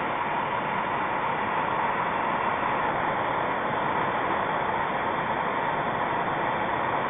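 Gas torch burning with a steady, even hiss, its flame held on a clogged 3D printer nozzle to burn the plastic out.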